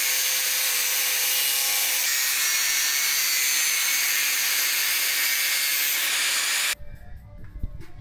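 Angle grinder cutting into metal: a loud, steady, high hiss with a faint motor whine beneath it, cutting off suddenly near the end.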